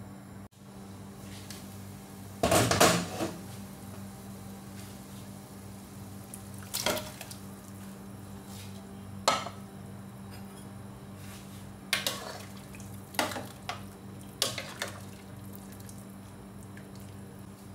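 Metal cooking pot and utensils clattering in about six short knocks, the loudest two and a half seconds in, over a steady low hum.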